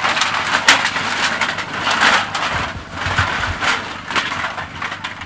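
Irregular knocks, cracks and rustling from a protection dog struggling on a decoy's padded bite suit during bite work.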